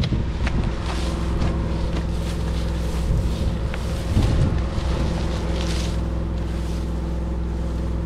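An engine running steadily at constant speed, with a few light clicks and knocks over it.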